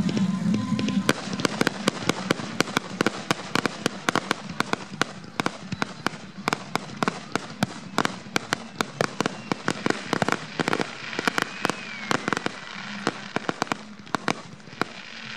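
Aerial fireworks going off: a rapid string of sharp bangs and pops, several a second, starting about a second in and thinning out toward the end.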